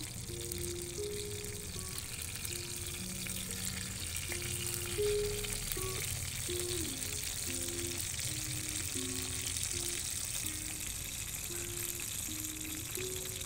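Hot oil sizzling and crackling steadily as a whole masala-coated fish shallow-fries in a small clay pan, with a simple melody of background music playing over it.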